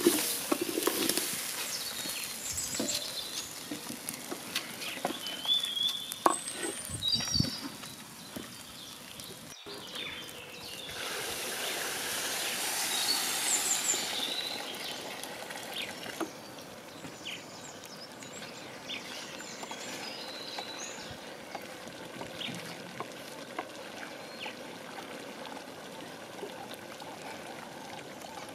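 Dry rice scraped and stirred with a wooden spoon in an aluminium pot, then water poured onto the rice for about four seconds starting about ten seconds in. After that, rice swishing as it is stirred in the water.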